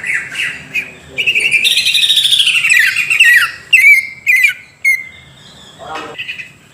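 Green leafbird (cucak ijo) singing: loud, rapid warbling phrases, then a few sharp whistled notes about four seconds in, before the bird falls quiet near the end.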